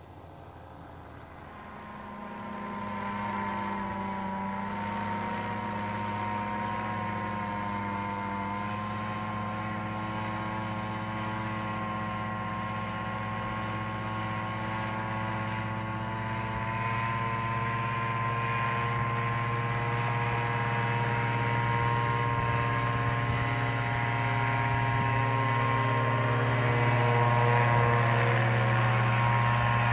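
Paramotor in flight: the Vittorazi EOS 150 single-cylinder two-stroke engine and its propeller running at a steady pitch. It swells in over the first few seconds, then grows slowly louder as it comes closer.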